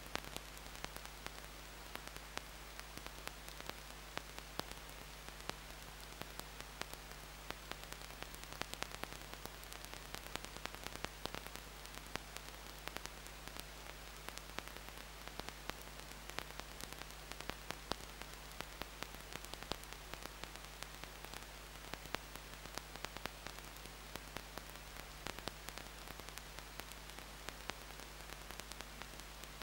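Steady static hiss with irregular faint crackling clicks and a low, constant mains hum: the noise of the recording's own signal, with no bird calls standing out.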